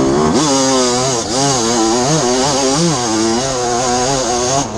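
Suzuki RM 250 two-stroke single-cylinder motocross engine being ridden hard, the revs climbing sharply about half a second in and then rising and falling again and again as the throttle is worked.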